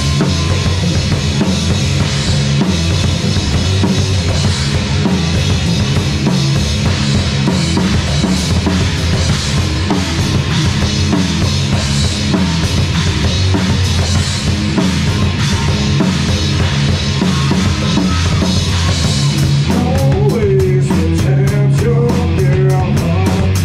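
Live heavy rock band playing: a pounding drum kit with bass drum and snare, over electric guitar and bass guitar. Near the end the drums break into rapid, evenly spaced strokes.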